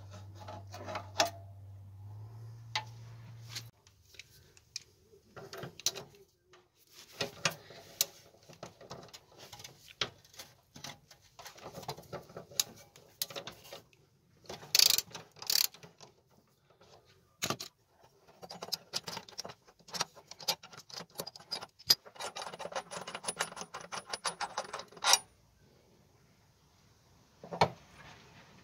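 Hand tools clinking and knocking on small-engine parts during disassembly of a Briggs & Stratton lawn mower engine, with a ratchet wrench clicking rapidly for about three seconds near the end. A low steady hum stops about four seconds in.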